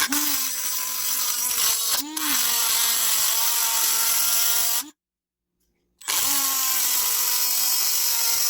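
Dremel rotary tool running at high speed, grinding away part of a pinball lamp-panel bracket. It spins up at the start, falters briefly about two seconds in, stops just before five seconds and starts again about a second later.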